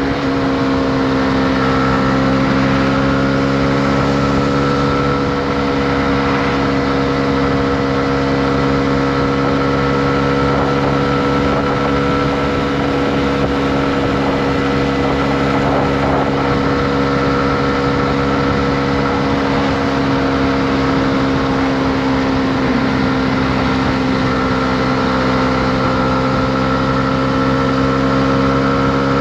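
Honda CB125R's single-cylinder four-stroke engine running at steady revs while cruising, its note holding an almost constant pitch after settling about a second in, over a steady rush of wind and road noise.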